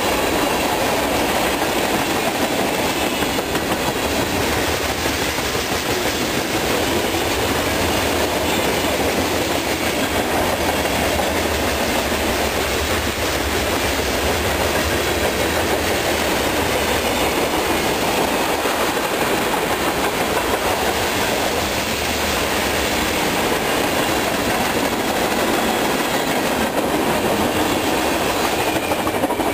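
Freight train of tank cars and covered hoppers rolling past, its steel wheels making a steady, unbroken noise on the rails.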